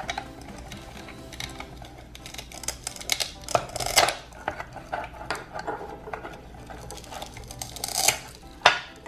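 Plastic toy fruit and a toy knife clicking and knocking on a plastic cutting board, with the velcro-joined pieces of a toy orange pulling apart as it is cut. The loudest strokes come about four and eight seconds in.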